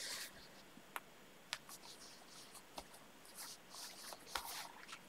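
Faint rustling of a layered fabric piece being handled, with a few soft ticks.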